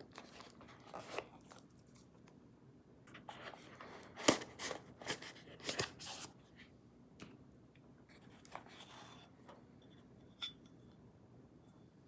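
Foam box insert scraping and rasping against the cardboard box as fingers work it loose, in a run of scratchy rubs loudest about four to six seconds in. A light click with a short ring near the end.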